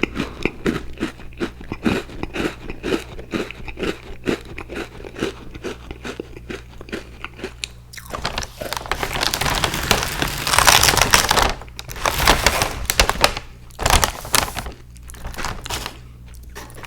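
Close-miked chewing of crunchy Icee-flavoured sandwich cookies: a quick, even run of crisp crunches, about three a second, then a louder, denser crackling stretch about halfway through before separate crunches return.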